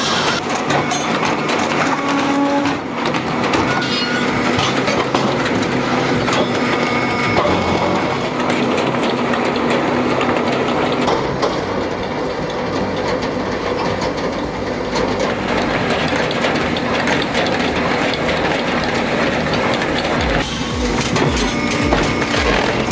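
Hakki Pilke Easy 50 firewood processor running, a steady mechanical clatter as it works logs.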